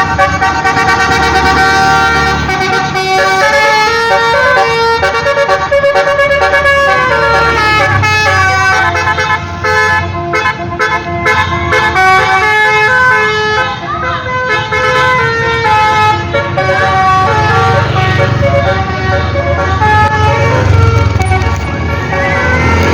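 Basuri telolet multi-tone horn on a bus playing a tune of quick stepping notes, over the low rumble of the bus engine.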